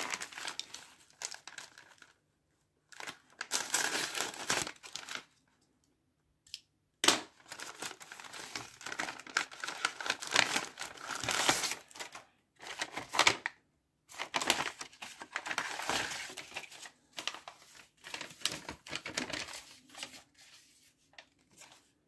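Plastic mailing bag crinkling and tearing as it is opened by hand, with a paper sheet rustling, in irregular bursts separated by short pauses.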